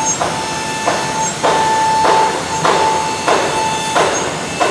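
Holztek RT1325V CNC router's spindle cutting into a wood panel: a steady high whine, with a rush of cutting noise that swells and fades about every two-thirds of a second.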